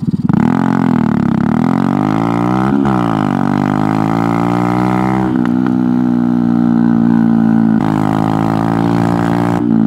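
Honda Grom MSX125's single-cylinder engine running under way as it is ridden, a steady drone whose pitch dips and climbs with the throttle in the first three seconds, then holds level.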